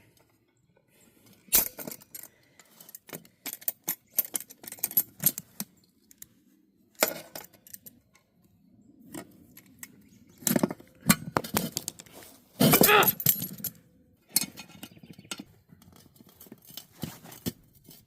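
Irregular metallic clinks, knocks and scrapes as a tire bead is worked over a steel wheel rim by hand, with a longer scraping stretch near the two-thirds mark.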